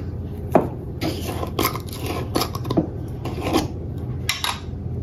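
A small glass salt jar being handled over a glass mixing bowl: a string of light clicks and scrapes, glass on glass and on the counter, as a pinch of salt is added to flour and sugar.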